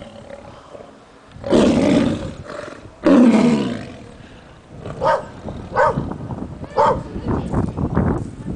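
Tigers snarling and roaring at each other in rough play. There are two loud roars, about one and a half seconds and three seconds in, followed by shorter, quieter sounds.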